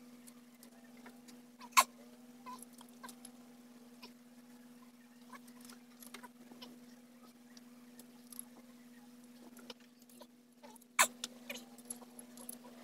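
Scattered light metallic clicks, taps and scrapes of tools and parts being handled on an Isuzu 6WG1 diesel engine's cylinder head as the injectors are removed, with a sharp clink about two seconds in and another about eleven seconds in. A steady low hum runs underneath.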